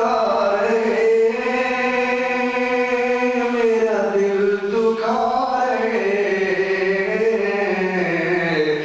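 A man's solo voice chanting unaccompanied into a microphone, in long held notes that waver and glide slowly in pitch, with a brief pause for breath about halfway through.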